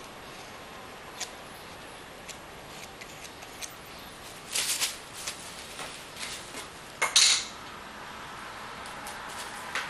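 Metal palette knife tapping and scraping as it spreads thick acrylic paint: a few light clicks, then short scrapes, the loudest about two-thirds of the way through.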